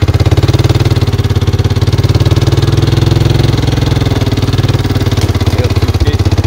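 An engine running steadily close by, with a fast, even pulse.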